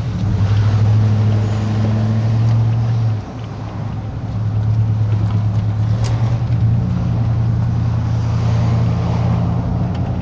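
Car engine and road noise heard from inside the cabin while driving: a steady low drone that drops off briefly about three seconds in, then picks up again.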